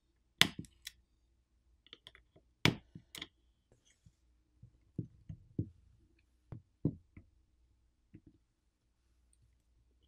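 Irregular small sharp clicks and taps of a metal spudger on a smartphone's main board as coaxial antenna cables are popped off their snap connectors, the loudest about half a second and about three seconds in, with lighter clicks after.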